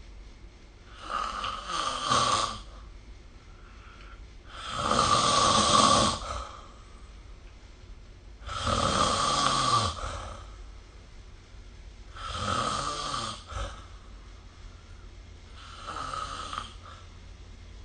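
A sleeping person snoring, five snores about every three and a half to four seconds. The second and third are the loudest and the last is fainter.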